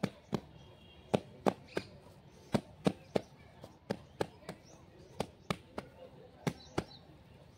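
Bare hands slapping and breaking up a heap of moist cow dung mixed with straw: a string of short, sharp smacks, irregular, about two a second.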